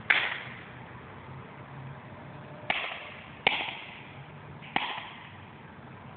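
Sparks cracking: four sharp snaps, one right at the start and three more between about three and five seconds in, each fading in a brief hiss, over a faint low hum.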